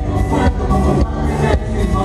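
Live band playing through a PA: drums keeping a steady beat of about two strokes a second, bass guitar and saxophones, with singers on microphones.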